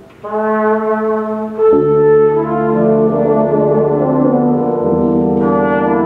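Tuba and euphonium ensemble playing slow, held chords. After a brief break at the start a new phrase comes in, and deeper notes join about a second and a half later.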